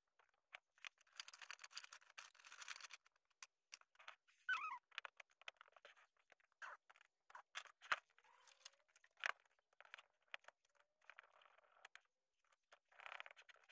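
Near silence broken by faint, scattered clicks and short scrapes of steel hand tools and vise parts being handled, with a few sharper clicks about eight and nine seconds in.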